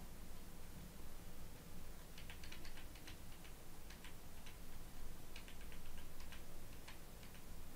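Light clicks of computer keyboard keys on the numeric keypad, tapped in short quick runs of a few presses each, over a faint steady hum.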